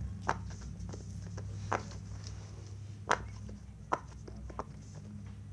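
Faint, scattered soft clicks and taps from handling a silicone pop-it fidget toy, about eight in all at uneven intervals, over a steady low hum.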